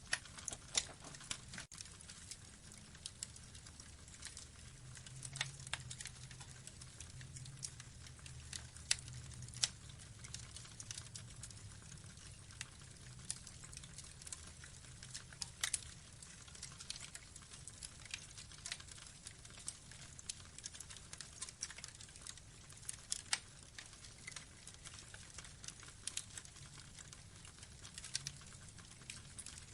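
Wood logs burning in an open fire, crackling with irregular sharp snaps over a low steady hum.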